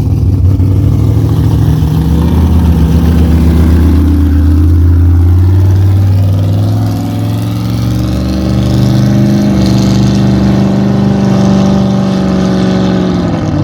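Big-block Chevy V8 with a tunnel ram running hard down the drag strip. The pitch climbs slowly, there is a short dip in loudness about seven seconds in, and then the pitch holds high. The revs hardly fall at the shift, which the owner puts down to a torque converter blowing through with heavy slippage.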